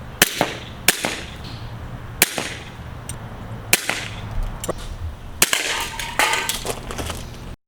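Airsoft gun firing single sharp shots, about half a dozen spaced a second or more apart, then a quicker ragged run of pops near the end; the sound cuts off abruptly just before the end.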